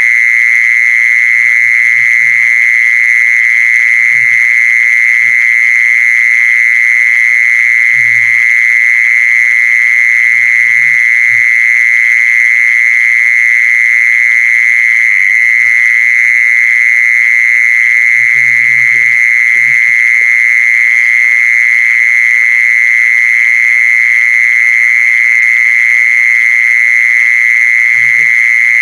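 A loud, unbroken high-pitched animal trill held at one steady pitch: the call used to lure a female kmol.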